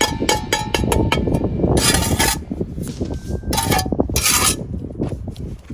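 Steel brick trowel tapping a freshly laid brick down into its mortar bed toward the string line, a quick run of light taps in about the first second. Then come three scrapes as the trowel cuts the squeezed-out mortar off the joint.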